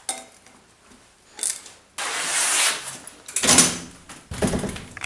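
Clatter, knocks and scraping from a BMX bike being handled and wheeled out through a door, in several separate bursts; the loudest knock comes about three and a half seconds in.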